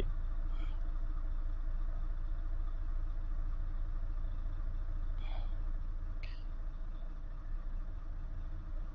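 Steady low background hum with a faint even hiss, broken by a few faint short high chirps.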